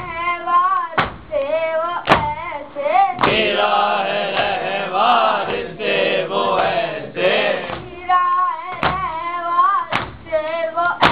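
A noha lament sung by a boy's voice, with several voices singing together in the middle, over rhythmic chest-beating (matam). Hand strikes fall about once a second.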